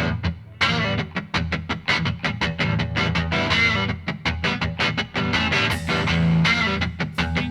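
Background music led by guitar, picking quick rhythmic notes.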